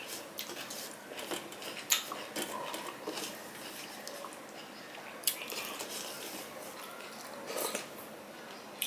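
Fingers mixing and scraping rice and curry across a stainless steel plate, with several sharp clicks of fingers against the metal among soft wet squishing.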